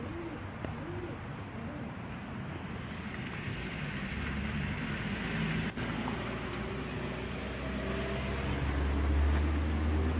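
Outdoor background noise: a steady low rumble like distant traffic with wind on the microphone, the rumble and a low hum growing louder from about eight seconds in.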